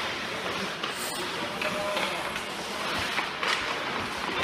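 Ice hockey play in a near-empty rink: skate blades scraping the ice in a steady hiss, with a few sharp clacks of sticks or puck.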